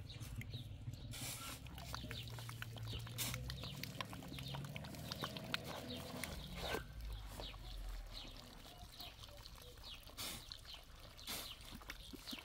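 Faint livestock sounds with scattered small clicks and knocks, over a low hum that fades out about eight seconds in.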